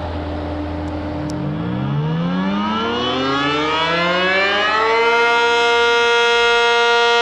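ACA Cyclone tornado siren winding up: its wail rises in pitch for about three and a half seconds, then holds steady at full pitch. The level climbs as it rises.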